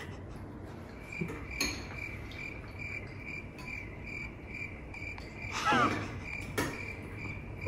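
Cricket chirping in a steady run of short high pulses, about three a second, starting about a second in. Spoons clink against bowls now and then, loudest a little before the six-second mark.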